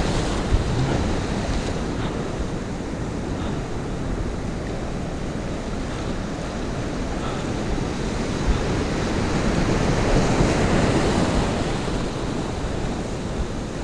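Ocean surf breaking and washing over rocks close by, a continuous rushing of foaming water that swells louder as a bigger wave surges through about ten seconds in.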